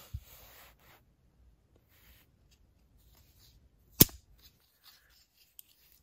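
Ratnik 6E6 multitool being handled, its Phillips screwdriver folding shut into the handle with one sharp metal click about four seconds in, amid faint rustling of the tool in the hands.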